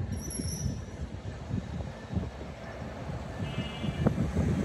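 Low, uneven rumble of an approaching diesel-hauled passenger train. Faint high steady tones sound in the first half-second, and a brief higher tone comes about three and a half seconds in.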